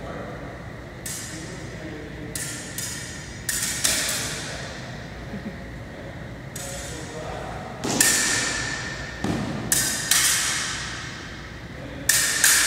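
Practice sabres clashing blade on blade during a sparring bout: a string of sharp metallic strikes. The hardest two, about eight and twelve seconds in, leave a ringing tone.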